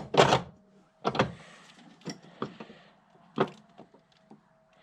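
Hand work on a car's brake booster delete kit at the firewall: a handful of sharp metal knocks and clicks from parts and tools being handled and fitted, the loudest right at the start.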